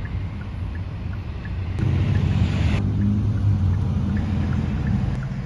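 Road noise heard inside a moving car: a steady low rumble of engine and tyres. It grows louder about two seconds in, with a brief rush of noise lasting about a second.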